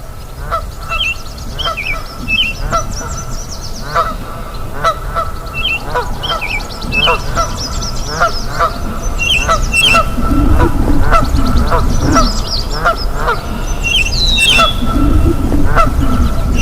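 Nyamang frogs giving short, honking calls over and over, about one a second, answered by birds with short chirping notes and rapid high trills, over the steady rush of a river.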